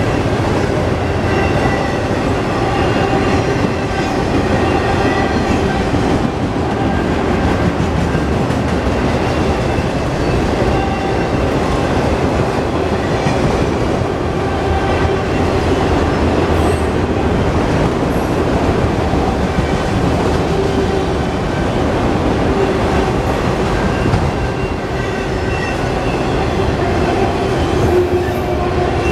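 Freight train of autorack cars rolling past at close range: a steady rumble and rattle of steel wheels on the rails, with faint squealing tones that come and go.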